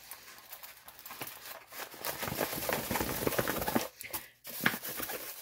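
Clear plastic packaging crinkling and rustling as it is handled and unwrapped, loudest and densest from about two seconds in to just before four seconds, with scattered crackles either side.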